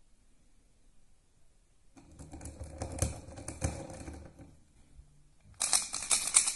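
YuXin Little Magic 3x3 speedcube being turned fast: a rapid clatter of plastic layer turns in two runs, the first about two seconds in and a louder one near the end. The cube is lubed with Angstrom Gravitas on the piece tracks and Dignitas in the main pieces.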